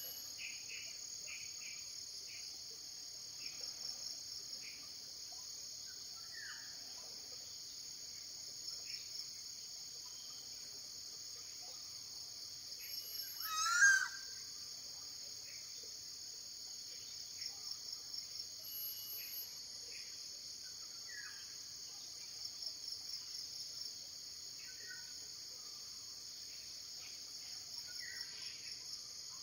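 Steady high-pitched insect chorus of forest crickets or cicadas, swelling in short pulsing bursts every few seconds, with scattered faint bird chirps. About halfway through, one brief louder sound wavers and sweeps down in pitch.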